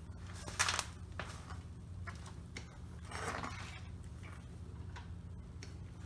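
A low steady hum with a few light clicks and a short rustle, made by someone handling the pit bike; its engine is not running yet.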